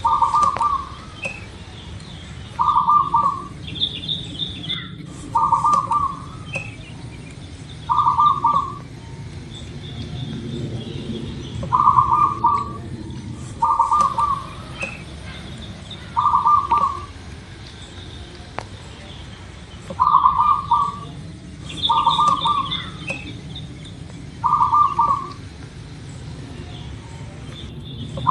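Zebra dove (perkutut) cooing: a short, rapid trilled coo repeated about every two to three seconds, roughly ten times. A few fainter, higher chirps from another bird come in between.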